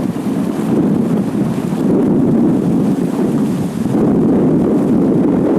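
Steady wind rumbling on the microphone, with no distinct pitch or individual events.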